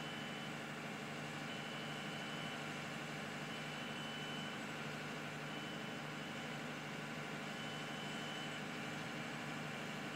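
Steady low mechanical hum, with a high electronic beep about a second long repeating roughly every two seconds.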